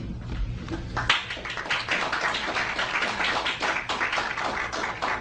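Audience applauding: a dense patter of many hands clapping that starts about a second in and stops near the end.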